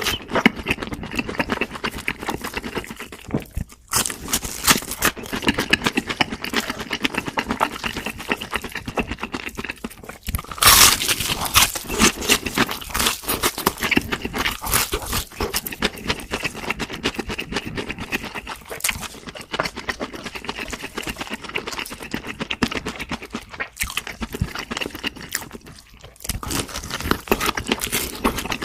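Close-up mouth sounds of eating fried food: crunching bites and chewing, with a louder crunch about eleven seconds in.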